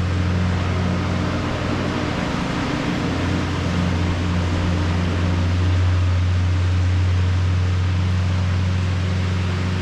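A steady low mechanical hum with an even hiss over it, unchanging throughout, like a fan or motor running.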